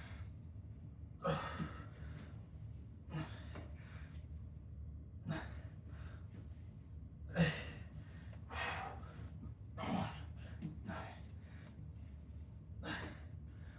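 A man breathing hard from exercise: about eight short, forceful exhales or gasps, one to two seconds apart. The loudest comes about halfway through.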